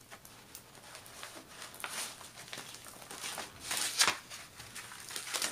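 Rolled diamond-painting canvas being unrolled and flattened by hand: stiff canvas and paper rustling and crinkling, with a louder crackle about four seconds in.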